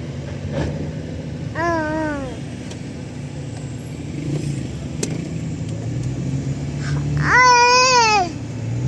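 Two drawn-out, wavering vocal calls over a steady low hum, one about a second and a half in and a louder, longer one near the end.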